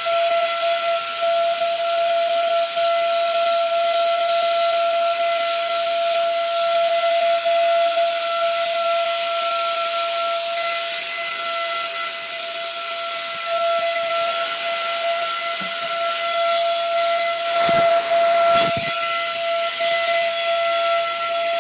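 Handheld cordless car vacuum cleaner running: a steady high motor whine over a rush of air. The sound briefly changes twice, about three-quarters of the way through.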